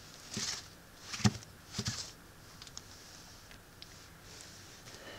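Plastic Transformers Tarn tank-mode figure being handled on a cloth-covered table: a few soft knocks with one sharper click about a second in, then a few light plastic ticks.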